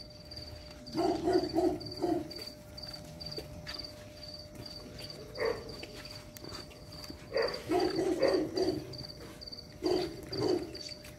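A cricket chirping steadily, about two chirps a second, under short bursts of a young dog's growls and yips as it tugs on a tug toy, in four clusters, the longest about seven to nine seconds in.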